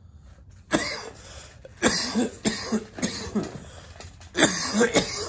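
A man coughing in a fit of repeated coughs, starting about a second in. It is the cough from harsh cannabis smoke, which he says makes him cough almost every hit.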